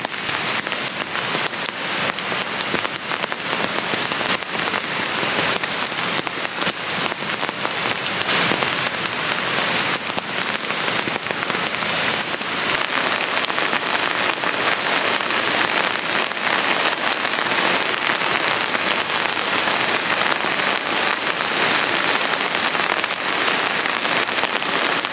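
Steady rain, pattering densely on a clear plastic umbrella held overhead.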